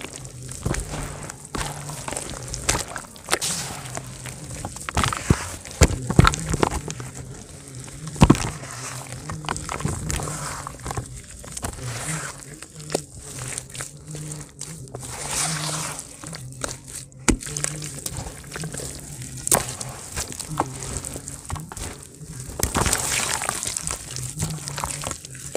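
Hands crumbling dry grey dirt into wet paste in a plastic basin and squeezing the wet mud: irregular crumbly crackles and clicks mixed with soft squelches and slops. A low hum runs underneath.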